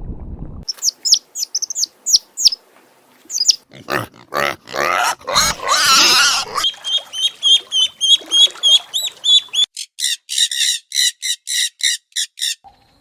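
Animal calls: a few high falling chirps, then a long harsh squealing squawk, then a fast series of high chirps, about four a second.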